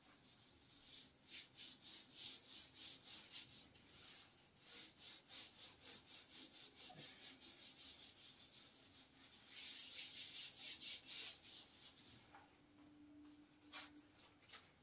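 A whiteboard being wiped clean with a cloth in quick back-and-forth strokes, about three a second, with a denser spell of rubbing around ten seconds in and a last couple of wipes near the end. Faint.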